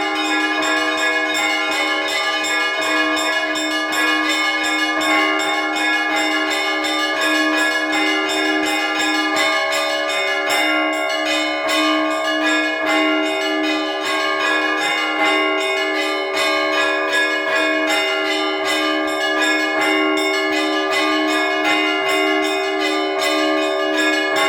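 Russian Orthodox trezvon: several church bells rung together in a full peal, small bells chiming in a rapid continuous patter over regular repeated strokes of a larger, lower bell.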